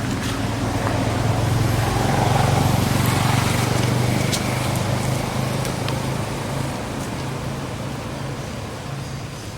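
A motor vehicle passing by: a low engine hum with road noise that grows louder to a peak about three seconds in, then slowly fades away.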